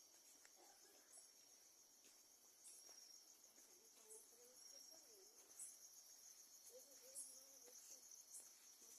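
Faint crickets trilling steadily in the night, with a higher chirp repeating about once a second.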